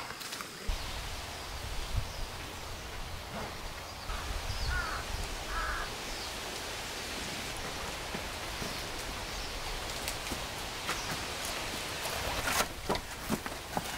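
Outdoor ambience: a steady hiss with a low rumble, two short animal calls about five seconds in, and a few scattered knocks near the end.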